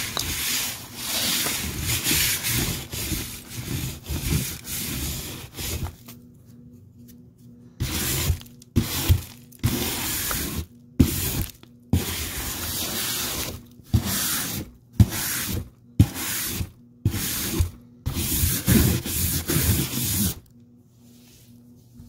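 Vacuum cleaner suction pulling up a pile of dirt, lint, paper confetti and small gems, with crackling grit. It runs steadily for about six seconds, then comes in short bursts with quieter gaps, and stops about twenty seconds in.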